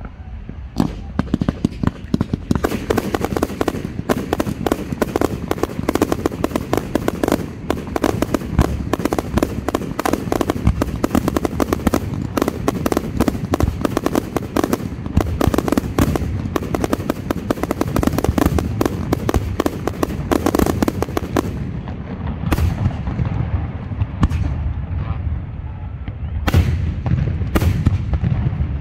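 Aerial fireworks display: shells bursting in a dense, rapid barrage of bangs and crackling for about twenty seconds, then thinning to a few separate bangs near the end.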